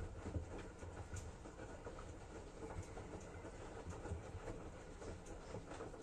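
Front-loading washing machine on its wash cycle, the drum turning slowly with laundry tumbling and water sloshing, giving soft, irregular low thumps and small clicks.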